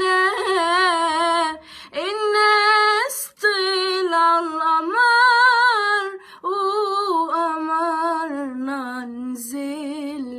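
A woman singing an Arabic song solo and unaccompanied, her voice dry with no audio effects. She holds long, ornamented notes with vibrato, pausing briefly for breath between phrases, and the melody sinks lower toward the end.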